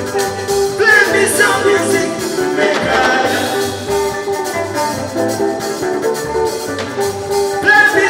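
Live highlife band playing a steady groove on electric guitar, bass guitar and keyboard, with a voice singing over it.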